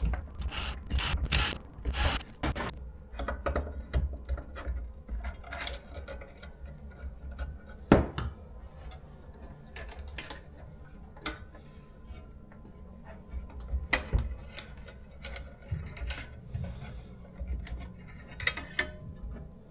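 Irregular metallic clicks, scrapes and handling knocks from hand tools taking out the four bolts that hold a Propex HS2800 heater's fan motor to its mounting plate, with sharper knocks about eight seconds in and again near fourteen.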